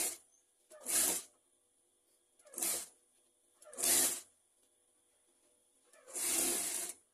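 Industrial sewing machine stitching in short bursts: five quick runs of a few stitches each, the last one the longest, as the collar seam is sewn a little at a time.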